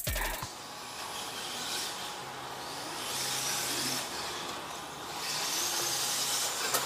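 Electric RC touring cars running on the track: a hiss of motors and tyres that swells and fades several times as the cars pass.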